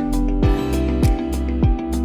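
Background music with a steady beat: a deep electronic kick drum about every 0.6 seconds under held chords and crisp percussion ticks.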